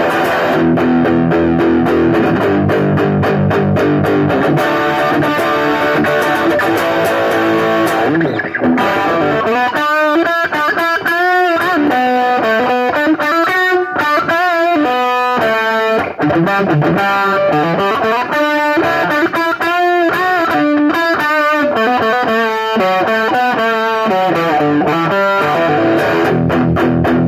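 Electric guitar with distortion playing power chords, then about nine seconds in a single-note solo with bent and wavering notes, going back to chords near the end.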